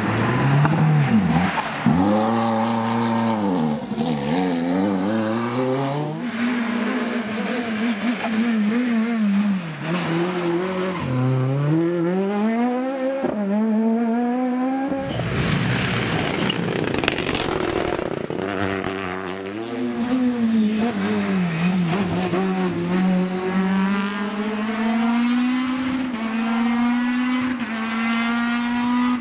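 Rally car engines revving hard, pitch repeatedly climbing and dropping back through gear changes. A noisy rush about halfway through, then an engine held at high revs that climbs slowly near the end.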